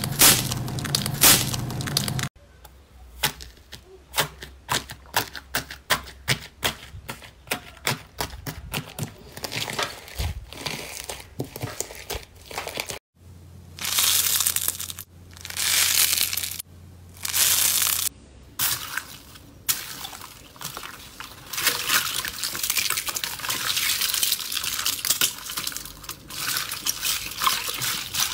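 Slime handled by hand: squishing, then a fast run of sharp pops and clicks, then three or four longer crackling stretches as a textured foam slime is pulled apart. From about 18 s on, a steady crackle of hands squeezing a basin of water beads.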